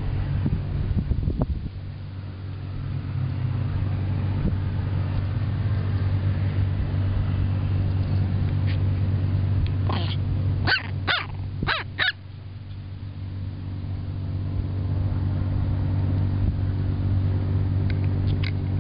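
Chihuahua puppy giving a quick run of about four short, high-pitched yips about halfway through, over a steady low engine hum.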